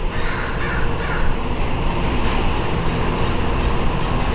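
About three harsh, crow-like caws in the first second or so, over a steady rumble of street noise.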